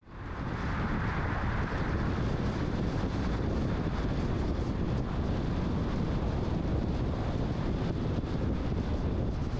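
Steady road and wind noise from a car driving at freeway speed, with wind rumbling on the microphone. It fades in at the start.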